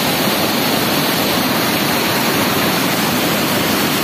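Fast, churning river water rushing steadily in a loud, unbroken wash of noise.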